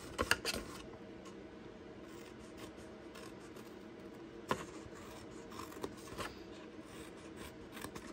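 Small scissors snipping through cardstock, cutting short slits into the sheet: a quick run of snips near the start, one sharp snip about halfway, and a few lighter snips after it.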